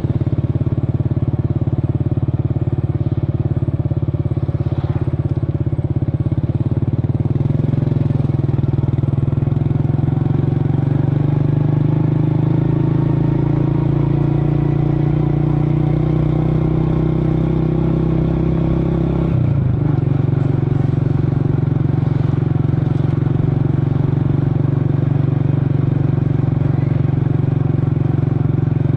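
Motor scooter engine running steadily, its speed creeping up for several seconds, then dropping sharply back to idle about two-thirds of the way through.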